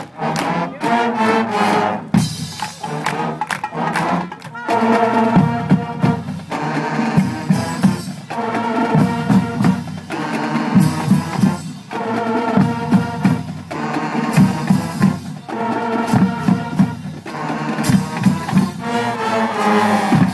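High school marching band playing: the brass section holds loud chords in phrases of two to three seconds with short breaks between them, and the drumline hits under them.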